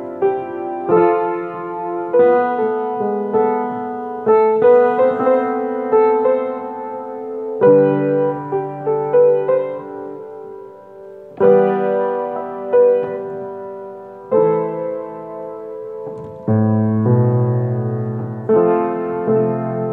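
Solo piano playing a slow tune: chords struck every one to three seconds and left to ring, with bass notes underneath.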